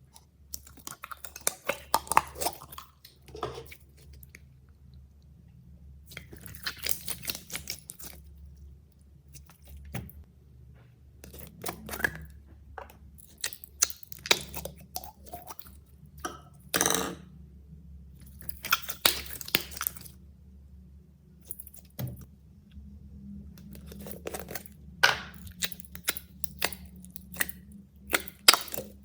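Slime being mixed and pressed by hand: irregular squishy clicks and short crackling bursts, some sharp and loud, over a faint steady low hum.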